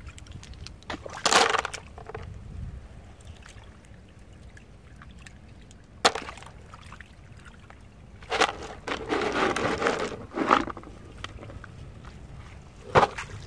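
Freshwater clams clattering into a plastic basin, with shallow muddy water splashing. A few single sharp knocks, and a longer burst of splashing and rattling a little past the middle.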